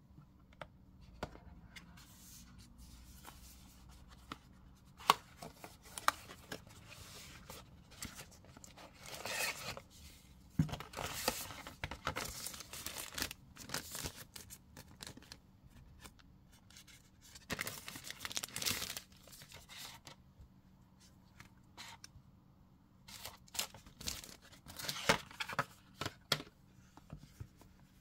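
Hands unpacking a cardboard smartphone box: the lid is worked off, then a thin frosted plastic sheet rustles and crinkles in the fingers in several bursts, with scattered light taps and clicks of card and packaging.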